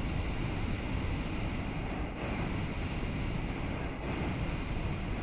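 Hot air balloon's propane burner firing in one long, steady blast.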